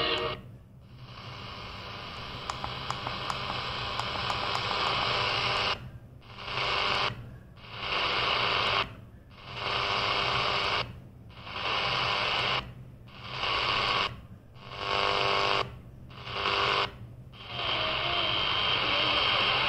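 Static and hiss from a CS-106 DSP pocket radio's speaker as it is stepped up the medium-wave band. The audio mutes briefly at each tuning step, about nine short gaps one to two seconds apart. A station's music cuts off about half a second in, and near the end a weak station comes in faintly under the noise.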